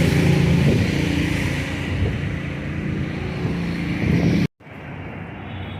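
A vehicle engine running steadily with outdoor street noise. The sound cuts off suddenly about four and a half seconds in, leaving a quieter steady noise.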